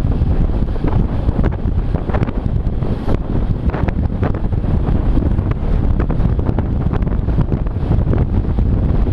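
Wind buffeting the microphone of a moving camera: a loud, steady low rumble with scattered crackles.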